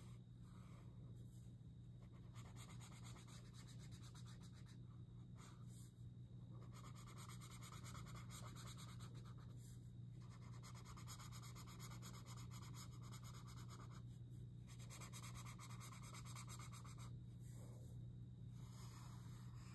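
Washable felt-tip marker rubbing across paper in stroke runs of one to four seconds with short pauses, as thick stripes are filled in. A faint steady low hum runs underneath.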